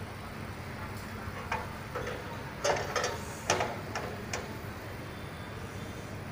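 A handful of short, sharp clicks and knocks, irregularly spaced, starting about a second and a half in and ending a little past the middle, over the steady low background of a high-voltage substation.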